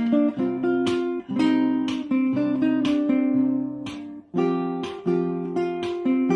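Acoustic guitar strummed in chords, each strum ringing out and fading before the next.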